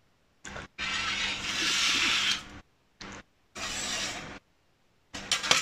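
Rustling and scraping as the oven's metal baking tray and wire grill rack are handled and slid on the counter. It comes in several short stretches, with a few light metal clinks near the end.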